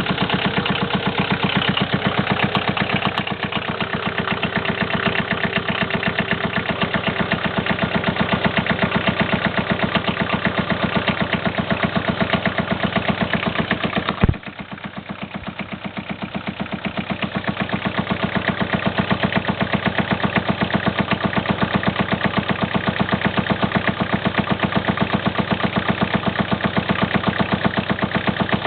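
2.5-litre pushrod engine idling just after start-up, with a steady, rapid rhythmic tapping knock from a worn hydraulic lifter. About halfway through there is one sharp crack, after which the running is briefly quieter before building back up.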